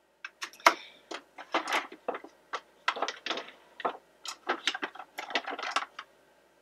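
Rummaging through makeup products: irregular clicks and rattles of plastic tubes and cases knocking together while a lipstick is picked out.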